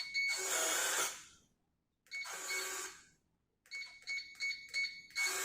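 Tru-Bolt electronic keypad deadbolt: short high beeps as its buttons are pressed, with its motor driving the bolt in whirring spells of about a second. The first whir follows the opening beeps, the second comes about two seconds in, and a quick run of five beeps as a code is keyed in leads into another whir near the end.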